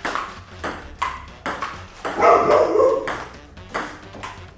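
Table tennis rally: the celluloid-type ball clicking off the paddles and the table top, about two hits a second. A loud short vocal cry breaks in a little after two seconds in.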